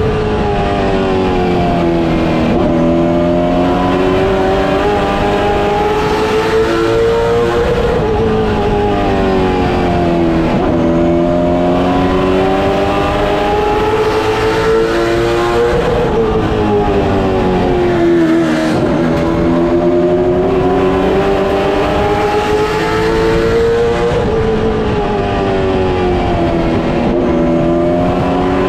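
Late model stock car's V8 engine at racing speed, heard from inside the cockpit. The engine note climbs steadily for several seconds and then drops back, about every eight seconds, over steady road and chassis noise.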